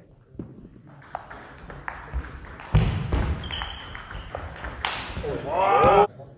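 Table tennis rally: the ball clicking off bats and table at irregular intervals, with a heavy thud of a player's footwork about three seconds in. Near the end a player lets out a loud, drawn-out shout.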